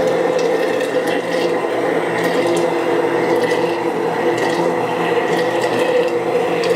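Immersion blender running steadily, whirring through egg yolks as hot butter is poured in to emulsify a hollandaise sauce.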